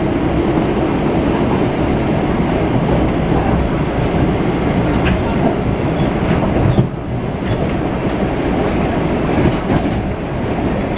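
Steady rumble of a PATH rapid-transit train running at speed, heard from inside the car: wheels on the rails with light scattered clicks, dipping briefly about seven seconds in.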